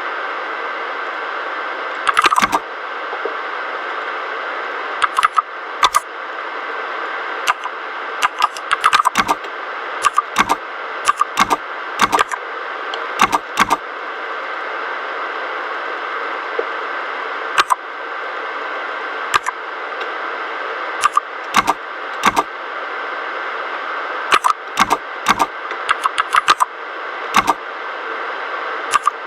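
Typing on a mechanical keyboard with red linear switches: keystrokes clack in irregular bursts, with a pause of a few seconds in the middle, over a steady hiss.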